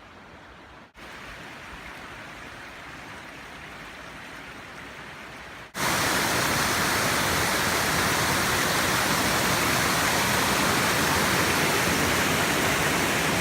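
Rushing water of a creek waterfall in high flow, a steady even rush. The sound changes abruptly about a second in and again about six seconds in, when it becomes much louder.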